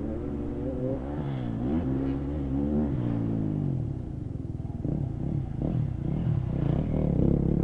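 Kawasaki KX250F dirt bike's four-stroke single-cylinder engine revving, its pitch climbing and dropping several times in the first three seconds, then running rougher at lower revs with a few knocks.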